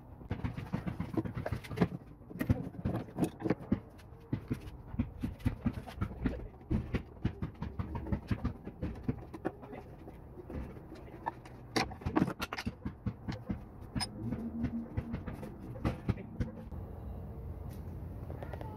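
Irregular clicks, knocks and light rattles of hands and a screwdriver working on an outboard motor's wiring connectors and control box as it is disconnected from the boat.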